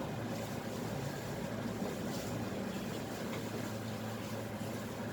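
Steady low hum under a faint even hiss, with no distinct knocks or clatter.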